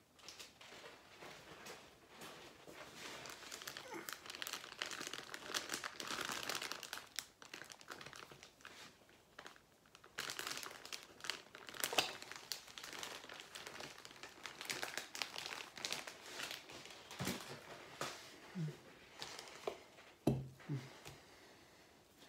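Crinkly silver foil wrapping being handled, crumpled and pulled open by gloved hands, giving a dense crackling rustle through most of the stretch. Near the end it thins out into sparser taps and handling noises.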